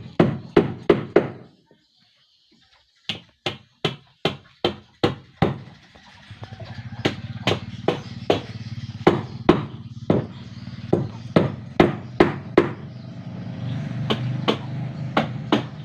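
Hammer blows on wood, struck in quick runs of about two to three a second, with a short pause about two seconds in. From about six seconds a steady low machine hum runs underneath.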